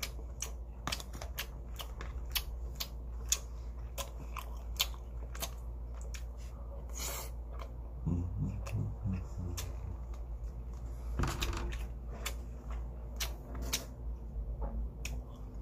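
Close-up eating sounds: chewing and mouth clicks mixed with light taps of a plastic spoon and wooden chopsticks against a plastic container, over a steady low hum.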